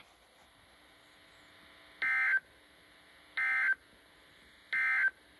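Three short Emergency Alert System (SAME) end-of-message data bursts, each under half a second and about a second and a half apart. They are two-tone digital squawks and signal the end of the alert message just read.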